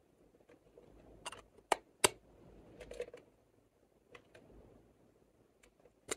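Sharp, irregular plastic clicks and taps from a lipstick case being handled, the loudest about two seconds in and another right at the end.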